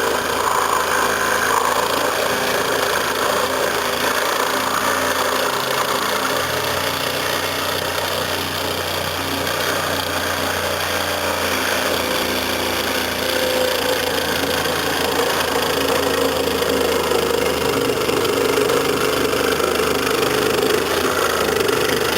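Electric power saw running continuously while cutting through a fiberglass boat's hull, its pitch shifting a little as the load on the blade changes partway through.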